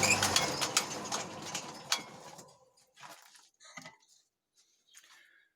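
Power hammer running with rapid blows over a steady motor hum. The hum stops about half a second in, and the hammer's knocking dies away over the next two seconds, leaving a few faint knocks.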